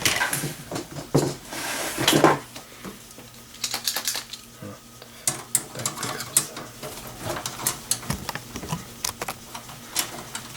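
Irregular light metallic clicks, taps and scrapes of a screwdriver, screws and drive parts against the steel case of a desktop PC while hard drives are being taken out.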